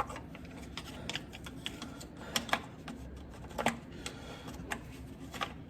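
Light, irregular clicks and taps of a plastic starter cover being handled and fitted into place, a few sharper knocks among them.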